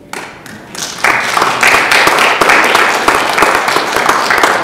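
Audience applauding, with a few scattered claps that swell into full clapping about a second in.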